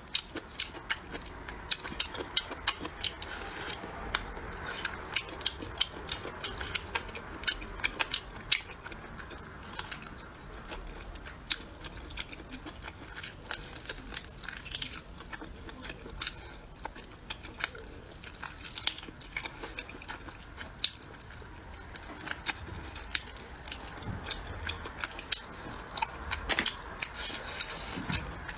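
Close-up chewing and biting of braised pork trotter, with many sharp, irregular mouth clicks.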